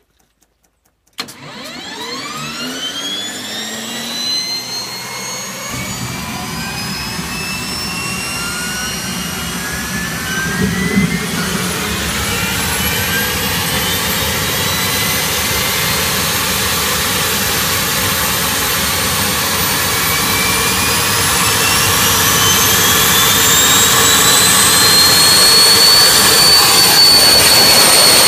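ST6L-73 auxiliary power unit, a twin-shaft gas turbine derived from the Pratt & Whitney PT6, starting up: a whine cuts in about a second in and climbs steadily in pitch as the turbine spools up, a low rumble joins about six seconds in, and it settles into a loud, steady high-pitched whine near the end as it reaches running speed.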